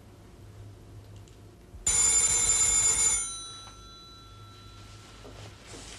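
A telephone bell rings once, starting suddenly about two seconds in and lasting just over a second, then its tones die away.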